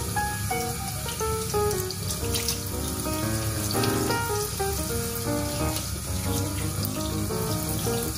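Water from a kitchen tap running steadily onto a gutted sea trout and splashing into a stainless steel sink, with background music playing over it.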